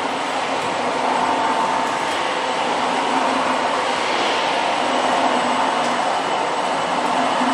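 Industrial continuous mesh-belt fryer line running in a factory: a steady, even machine noise with a faint constant whine and hum under it.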